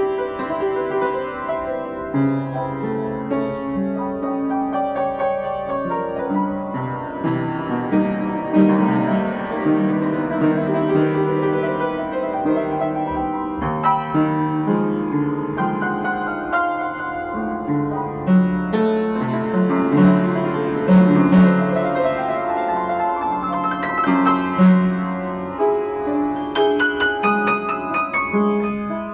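Yamaha JU109 upright piano played with both hands: sustained chords under a melody, with a quick run of notes near the end.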